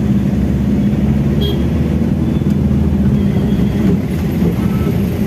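Steady low engine and road rumble from a moving vehicle in city traffic, with a brief short tone about a second and a half in.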